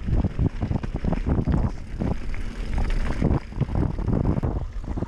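Bicycle riding down a rough dirt forest trail: wind buffeting the microphone as a steady rumble, with frequent irregular knocks and rattles from the bike jolting over the bumps.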